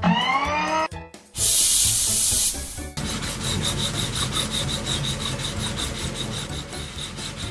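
Cartoon sound effects of a robot arm at work on a truck's side panel: a short rising whir, a hiss of about a second, then from about three seconds in a run of fast, even rasping strokes like filing or scrubbing.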